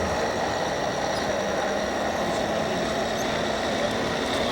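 Radio-controlled scale model trucks and construction machines running, giving a steady engine-like drone with a few thin steady tones over a constant background hiss.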